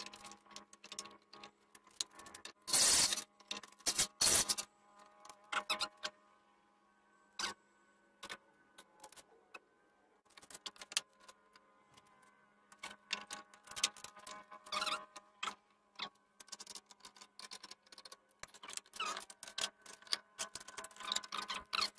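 Small metallic clicks and clinks of screws being handled and sorted by hand, scattered through the whole stretch, with two louder short noises about three and four seconds in.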